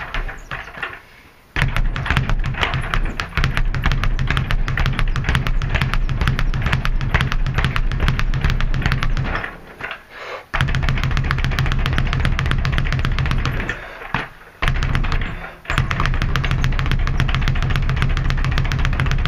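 Leather speed bag being punched against a wooden Everlast rebound platform: a fast, steady rattle of the bag striking the board and rebounding. The rattle stops briefly just after the start, about halfway through and again about three-quarters through.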